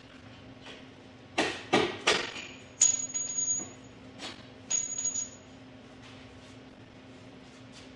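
Hammer striking metal: three quick blows, then two more spaced blows, each followed by a brief high ringing.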